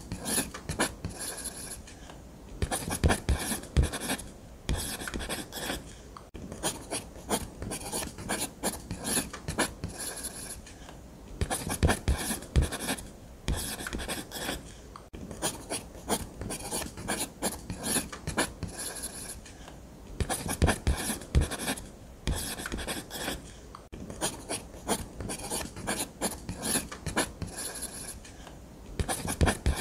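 Ballpoint pen scratching on paper in quick, repeated drawing strokes, coming in bursts of a few seconds with short pauses between.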